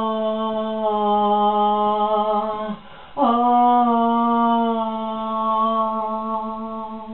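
A singing voice holding a long, steady wordless note, breaking once for a breath about three seconds in, then holding a second long note that fades near the end.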